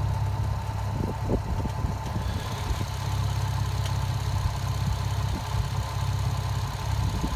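Nissan 350Z's V6 engine idling steadily with an even low hum, its pitch holding level throughout.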